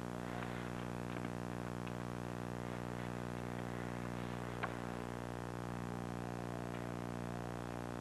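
Steady electrical hum and buzz on old home-videotape audio, with faint clicks about a second in and about four and a half seconds in.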